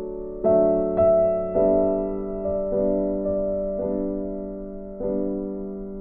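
Background music: slow, soft piano or electric piano chords, a new chord struck about every second.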